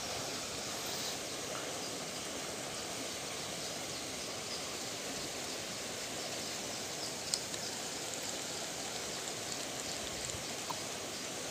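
Steady rushing of water flowing in a concrete rice-field irrigation channel, with a single faint click about seven seconds in.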